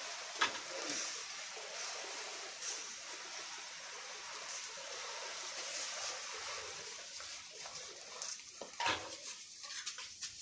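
Wheat grain pouring and sliding out of a woven plastic sack, a steady rushing hiss that thins out near the end, with a couple of sharp knocks.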